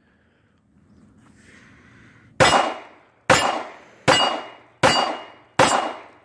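Five shots from a 9 mm Star B pistol, about three-quarters of a second apart and starting about two and a half seconds in, each followed at once by the ring of a struck steel target plate.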